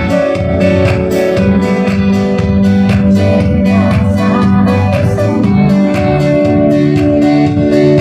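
Music with guitar over a steady beat, sustained chords and no clear voice.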